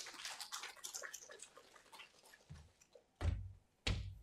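Microphone handling noise: quick clicks and rustling as it is handled, then two dull thumps a little after three seconds in.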